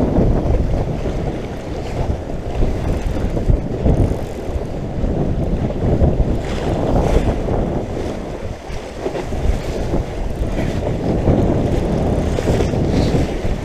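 Gusting wind buffeting the microphone in a loud, uneven rumble, with waves washing and splashing at the water's edge beneath it.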